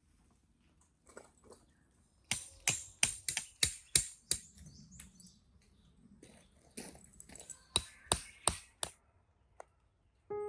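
Two runs of sharp clicks and knocks, the first quick series about two seconds in and a second series near the end, like gear being handled.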